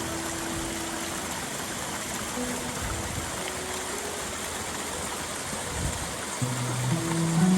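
Steady rush of water from the koi pond's waterfalls. Soft music plays over it, with a few held notes at the start and more coming in near the end.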